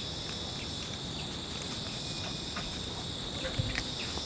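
A steady, high-pitched chorus of insects, with a few faint ticks scattered through it.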